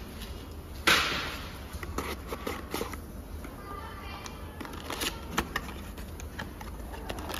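Small cardboard parts box being slit open with a blade and its flaps pried apart: scattered scraping and cardboard clicks, with one sharp knock about a second in.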